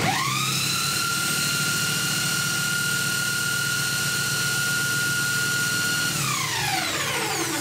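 A 710-watt electric power drill spinning a homemade permanent-magnet generator under the load of a 12-volt 25-watt bulb. Its whine rises quickly to a steady high pitch, holds, then falls away as the drill runs down near the end.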